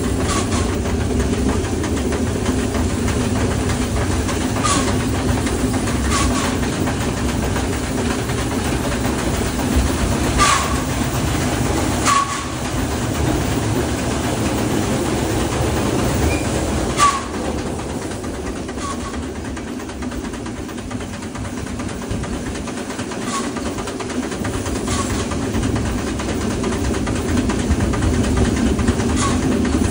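Small steam locomotive running along the track, heard from its front end. There is a steady low rumble of wheels on rail, with a sharp click every couple of seconds as the wheels pass rail joints.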